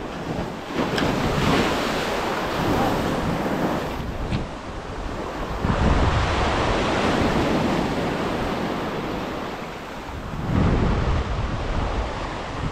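Small waves breaking on the beach and washing up the sand in three surges, each rush building and then fading away, with wind rumbling on the microphone.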